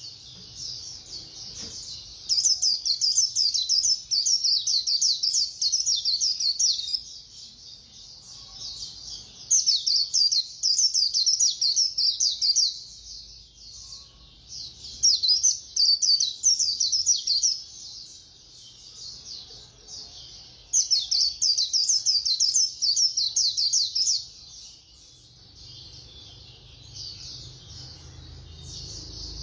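White-eye (khuyên) singing its fast 'líu' song: about four bursts of rapid, very high twittering notes, each a few seconds long, separated by short pauses.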